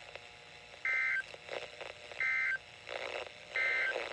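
Emergency Alert System end-of-message (EOM) data bursts over NOAA Weather Radio: three short, identical two-tone warbling bursts just over a second apart, marking the end of the test message.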